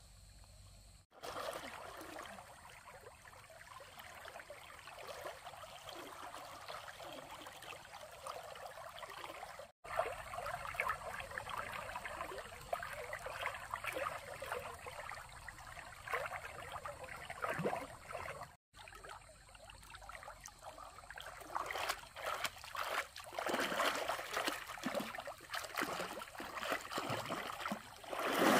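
Water trickling and splashing, louder and choppier in the last several seconds. The sound drops out abruptly three times, as clips are cut together.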